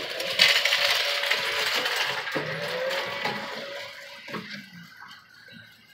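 Scraping, rattling and clicking of hands working an LED bulb into the plastic overhead console light housing of a car. The noise fades out after about four seconds.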